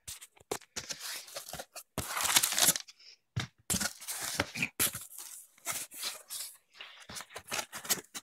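Cardboard shipping box being opened by hand: its flaps and a cardboard insert rustle and scrape in a string of short, irregular bursts, with a longer, louder burst about two seconds in.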